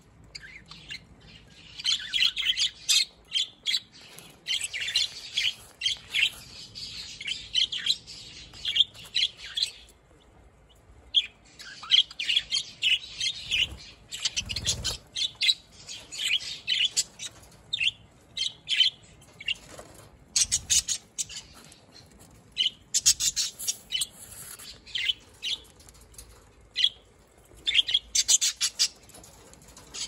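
A flock of budgerigars chattering in quick, busy chirps, in clusters with a short break about a third of the way through.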